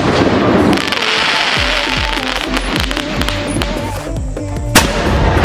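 Background music with a beat over a flower pot (ground fountain firework) spraying with a dense hiss in the first half. A single sharp crack comes near the end.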